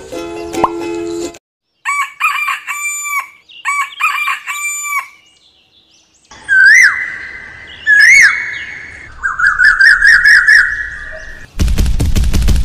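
Chicken calls: short clucking calls, then a rooster crowing, with two rising-and-falling notes and a held tone, followed by a warbling trill. About a second before the end, a fast, even rattle starts.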